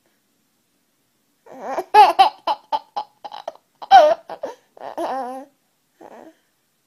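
A baby laughing in his sleep: a run of short, high giggles starting about a second and a half in, loudest twice, then trailing off to one faint sound near the end.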